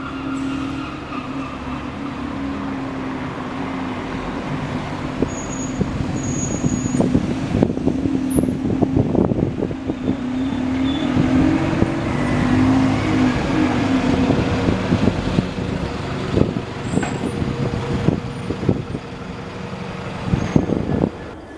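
A large diesel vehicle's engine running close by with a steady drone, slowly getting louder. From about eight seconds in it is joined by many irregular knocks and clatters.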